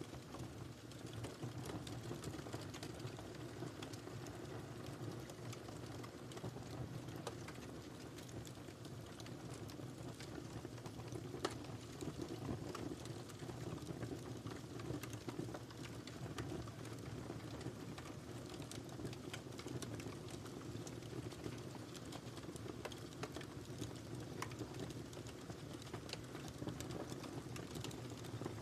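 Wood fire crackling: a steady low rumble of burning with frequent small sharp pops and snaps, one louder pop about eleven seconds in.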